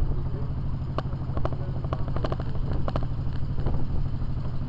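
An engine running steadily with a low hum, with scattered short clicks and knocks over it.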